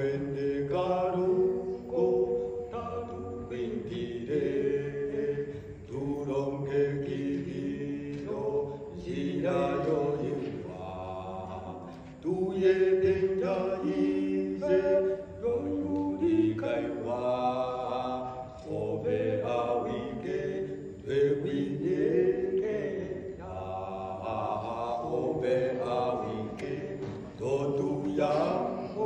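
Two men's voices singing a cappella, with no instruments, in phrases of a second or two broken by short breaths.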